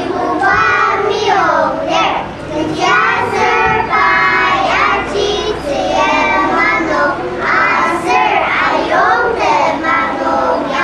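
A small group of young children singing together, with held and gliding notes and short breaths between phrases.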